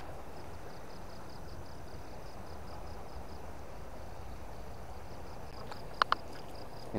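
Insects chirping in a fast, even pulsing rhythm over a steady rush of river water. Two sharp clicks about six seconds in.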